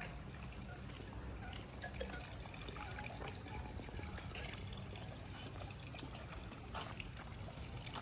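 Water trickling and splashing lightly, over a low steady rumble.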